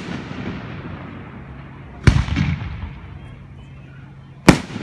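Aerial firework shells bursting: two sharp booms about two and a half seconds apart, each trailing off in a rolling echo.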